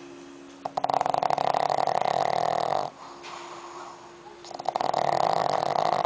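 A pug snoring in its sleep: two long fluttering snores, the first starting just under a second in and the second near the end, with a quieter steady tone between them.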